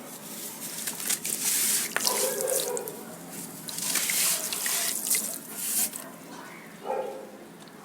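Soft, crumbly sand breaking apart in water, in several hissing, crackly bursts with sharp clicks and a couple of short gurgles.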